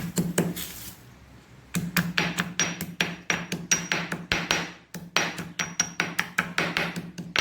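Pestle pounding wilted Indian borage (ajwain) leaves in a mortar to crush out their juice: quick, repeated strikes, about four or five a second, in a few runs with short pauses, some leaving a brief high ring.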